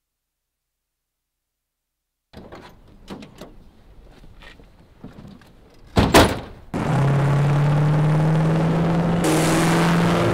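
Silence at first, then faint knocks as the car is entered, and two loud car-door slams about six seconds in. Right after, an old Chevrolet sedan's engine runs steadily. About nine seconds in, a rush of road and wind noise joins as the car drives off, the engine pitch rising slightly.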